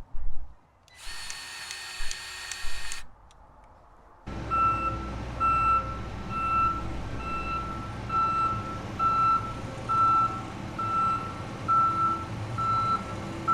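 A two-second whir with a steady high tone, then a heavy diesel engine comes in about four seconds in and runs. Over it a farm machine's reversing alarm beeps about once a second.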